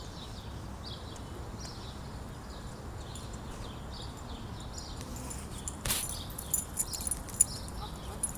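Small birds chirping over and over in the background over a low rumble of wind on the microphone. About six seconds in comes a sharp click, followed by a quick run of bright metallic ticks and jingles.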